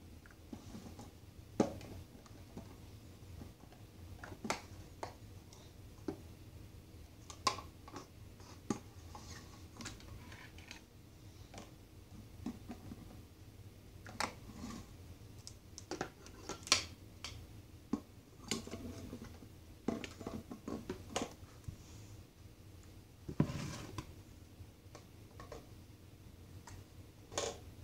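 Small plastic toy bins and cups being handled and set down on a hard floor: irregular light clicks and knocks, with a duller thump near the end.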